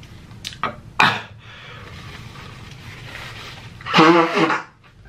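A man sneezing into a tissue near the end: one loud voiced burst that falls in pitch. It follows a couple of short sharp catches of breath and a stretch of breathy hiss. The sneeze is brought on by very spicy food.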